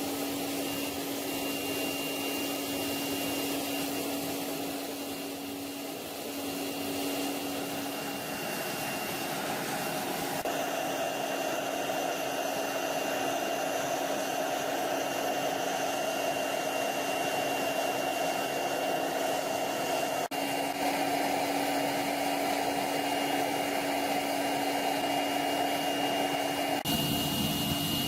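Electric power tool motor running steadily, a constant whine with a hum beneath it, with slight shifts in its sound a few times.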